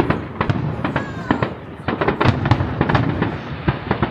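Aerial fireworks display: many rapid, overlapping bangs of shell bursts, several a second, over a constant crackle.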